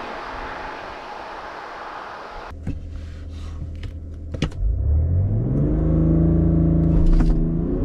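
Road and wind noise fades out, then a few sharp clicks. The Alpina XD3's quad-turbo straight-six diesel then revs up from idle about five seconds in and holds steady at raised revs, as for a standing-start launch.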